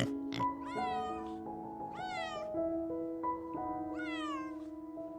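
A cat meowing three times, each meow about half a second long and rising then falling in pitch. Soft sustained background music plays underneath, with a couple of short clicks right at the start.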